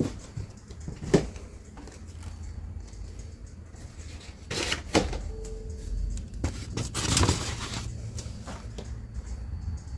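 Household refrigerator door being opened, with a sharp knock about a second in and a few more knocks as things are handled, then a short burst of rustling like plastic produce bags being moved on the fridge shelves, over a low steady hum.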